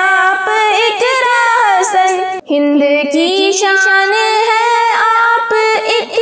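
A young female voice singing the refrain of an Urdu nazm, a slow melodic line with long held, wavering notes and a brief break about two and a half seconds in.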